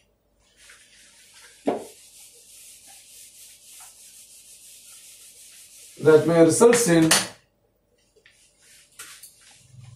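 Whiteboard eraser wiping across a whiteboard, a steady scratchy hiss of quick strokes lasting about five seconds, with a single knock about two seconds in. Just after the wiping stops comes a louder pitched sound lasting about a second.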